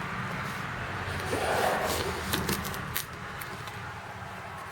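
Cardboard tool box being handled and turned, with a soft muffled rustle and a few light clicks over a steady low hum.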